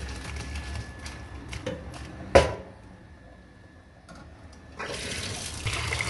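Boiled orange blossoms and their water poured from a pot into a stainless-steel colander in a sink, with one loud metal clank about two and a half seconds in. From about five seconds in, a steady stream of water pours over the blossoms in the colander.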